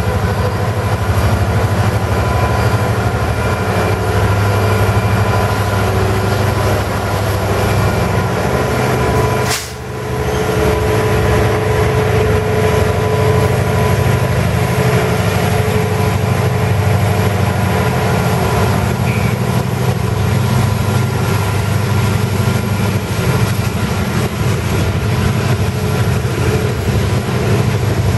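Freight trains passing close by: a continuous rumble and rattle of railcars rolling over the rails, with the diesel locomotives of a ballast train, a Norfolk Southern SD70ACe and a GE C44-9W, running past in the later part. The sound dips sharply for a moment about ten seconds in.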